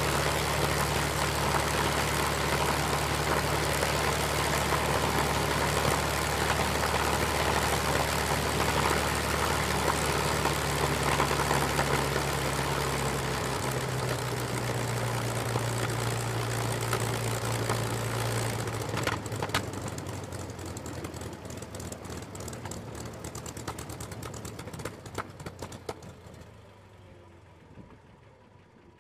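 P-51 Mustang's V-12 piston engine idling steadily on the ground, its note dropping a little about halfway through. About two-thirds of the way in the engine is shut down: the steady run gives way to a series of irregular clicks and knocks that fade away as the propeller winds down.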